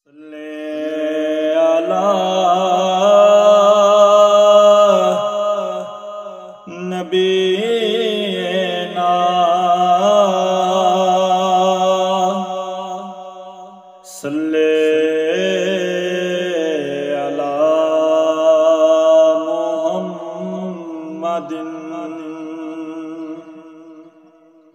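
A man's voice chanting a naat melody unaccompanied, with no instruments, in three long drawn-out phrases with held and bending notes. The last phrase fades away near the end.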